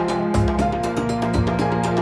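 Background music with a steady beat and a bass line that changes about once a second.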